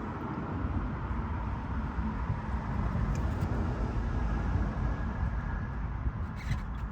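Steady low rumble of a vehicle running, with a faint high tone in the middle and a few sharp clicks near the end.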